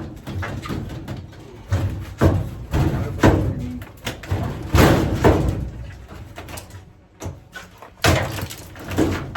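Old sheet-metal furnace being pushed and pried out of its place: repeated irregular metal bangs, knocks and scraping clatter, with several loud knocks spread through.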